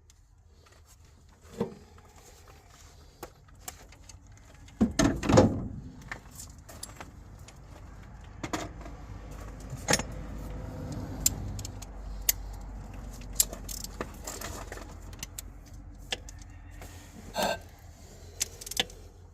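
Metal clinks and clatter of hand tools and parts being handled during engine work, with a louder clatter about five seconds in, over a low steady rumble.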